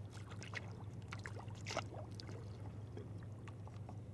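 Sea kayak paddles dipping and water trickling and splashing off the blades in light, irregular strokes, over a steady low hum.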